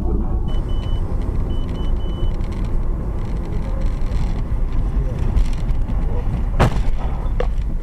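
Steady low rumble of a moving car's road and engine noise, picked up by an in-car dash-cam microphone. A short run of high electronic beeps sounds about half a second to two seconds in, and a single sharp bang or knock comes near the end.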